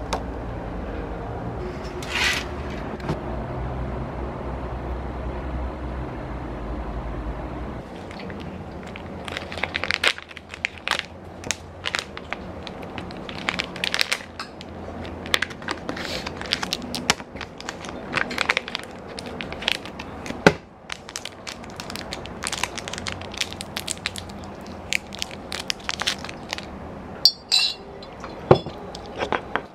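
A crinkly snack packet crackling and crumpling in the hands as it is handled and opened, with many sharp irregular crackles from about eight seconds in. Before that, a steady low hum.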